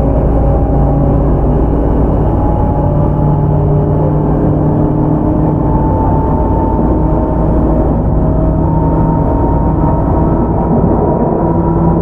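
Tobu 10030-series electric train motor car (MoHa 14437) running, heard aboard: the field-chopper-controlled DC traction motors whine over the wheel and rail noise, the whine slowly rising in pitch as the train gathers speed.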